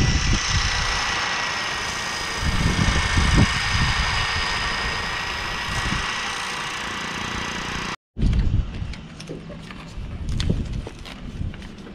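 A carbide hand scraper shaving a chamfer onto a wooden plug, heard over a steady mechanical hum with a thin high whine. After a sudden cut about two-thirds through, there are light rustles and ticks as sandpaper is handled.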